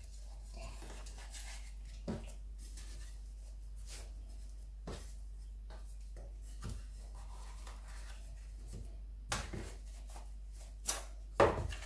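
Soft handling noises: scattered light taps and rubbing as dough balls are set into a metal loaf tin, with a couple of louder knocks near the end as the tin is taken hold of on the worktop.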